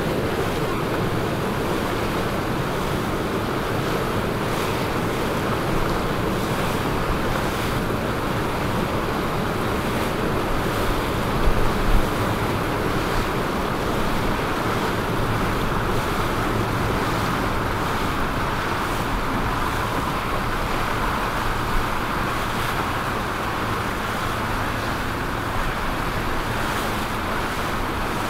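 Steady rush of wind on the microphone and water, with a low boat engine hum beneath. A few brief thumps about twelve seconds in.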